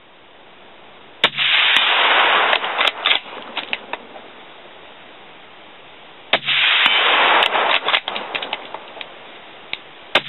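Suppressed .308 bolt-action rifle fired three times, about five seconds apart, the last right at the end. Each shot is a sharp report followed by a second or so of dense noise and crackling echoes that die away.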